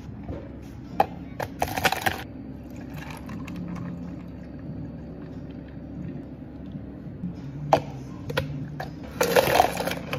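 Bubble-tea making behind a café counter: sharp knocks and short rattles of plastic cups and bottles over a steady low hum, and near the end ice cubes clattering from a scoop into a tall plastic cup.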